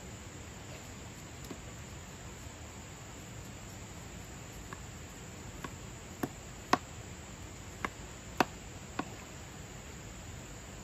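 Kitchen knife chopping on a plastic cutting board: about seven sharp, irregularly spaced knocks in the second half, over a steady high drone of insects.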